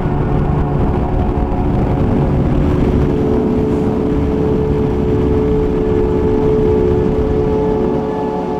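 Motorcycle engine running steadily at cruising speed over a constant rush of road noise, with a steady hum; one tone of the hum grows stronger about three seconds in.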